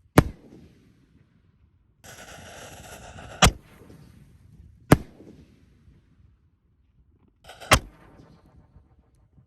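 Fireworks going off: four sharp bangs spread over several seconds, the second one preceded by about a second and a half of hissing rush.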